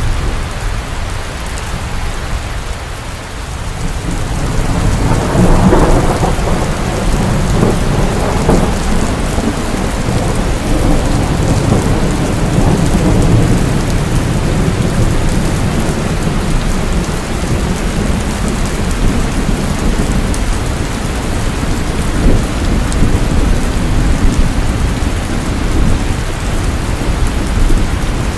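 Rain falling steadily, with a long low rumble of thunder swelling about five seconds in and rolling on.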